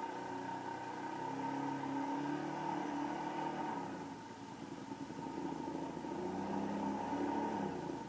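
Motorcycle engine running in the river, its pitch rising and falling unevenly as it is pushed across, over the steady rush of the flowing water.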